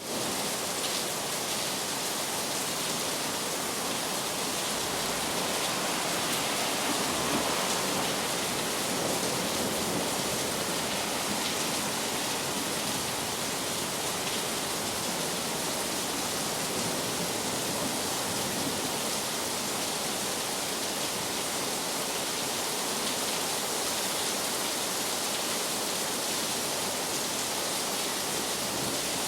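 Heavy rain falling steadily, a dense even hiss of drops, swelling slightly around seven seconds in.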